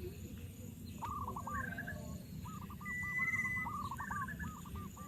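Birds calling: quick runs of short, arched notes repeated over and over, with a brief steady, higher whistle about three seconds in. A steady low rumble runs underneath.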